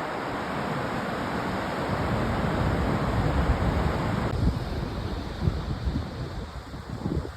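Ocean surf washing in, with wind buffeting the microphone in low rumbling gusts. The wash of the surf grows louder to about four seconds in, then drops away.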